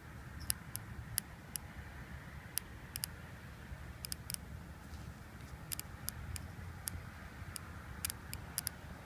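Mitsubishi Evo 560cc fuel injector clicking as it is pulsed by hand from a 9-volt battery through an injector clip: about twenty sharp, irregularly spaced clicks. The audible click is the sign that the injector's internals are firing.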